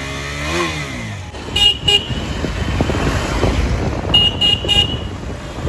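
KTM Duke 390 single-cylinder engine revving and pulling away. Short horn beeps cut through: two about one and a half seconds in and three more around four seconds. Street traffic noise runs underneath.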